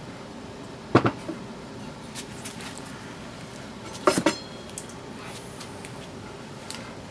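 A steel brake rotor with its aluminium adapter being set down on a wooden workbench: a clattering knock about a second in, then a quick rattle of hits about four seconds in with a brief metallic ring.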